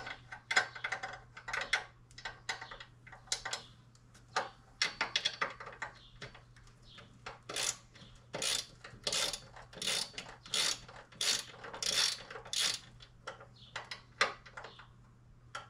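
Hand ratchet wrench clicking in repeated back-and-forth strokes, about two a second, as a bolt is tightened.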